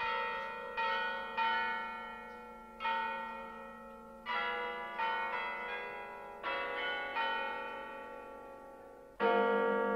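Tuned bells playing a slow tune one stroke at a time, each note ringing out and fading before the next. The last stroke, near the end, is the loudest.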